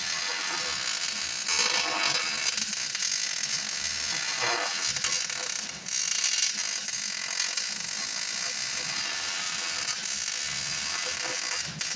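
MIG welder arc crackling and sizzling steadily as a bead is run on a steel backhoe bucket.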